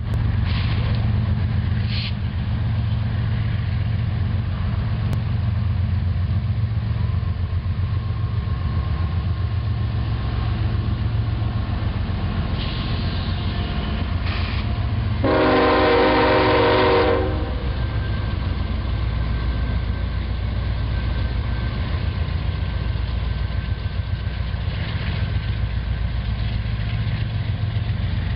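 Union Pacific diesel freight locomotives approaching and passing close with a steady heavy engine rumble, the lead unit's air horn sounding one long blast of about two seconds halfway through. After the engines pass, double-stack container cars roll by on the rails.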